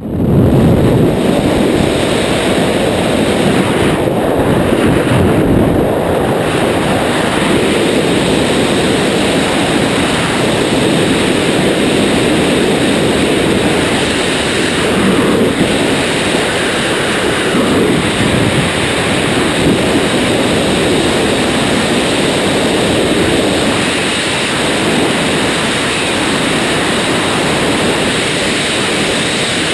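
Freefall wind rushing over a GoPro action camera's microphone during a skydive: a loud, steady buffeting that starts abruptly and holds throughout.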